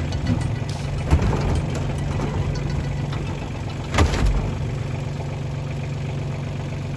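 Engine idling steadily, with two sharp knocks about one and four seconds in.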